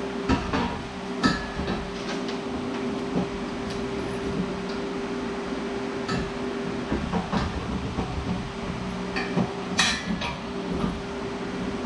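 Scattered metal clanks and knocks of tools and steel parts being handled, the sharpest a few times (just after the start, about a second in, and near ten seconds), over a steady machine hum.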